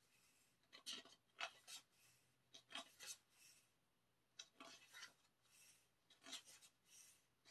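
Glossy pages of a K-pop album photobook being turned by hand: faint, short paper swishes and rubs, about a dozen of them, coming in small clusters.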